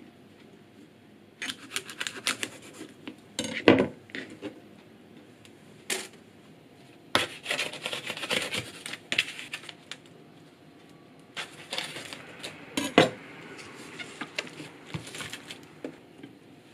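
Food preparation: a kitchen knife cutting on a plastic cutting board and working in plastic meat trays, in irregular clicks, knocks and rustles. Two sharper knocks stand out, about four seconds in and about two-thirds of the way through.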